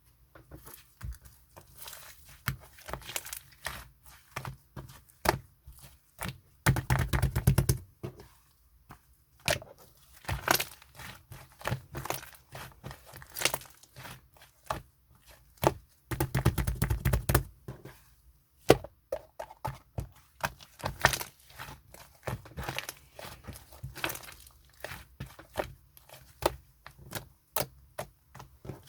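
Slime being squished and kneaded by hand, making irregular wet clicks and pops, with two stretches of rapid crackling clicks about seven and sixteen seconds in.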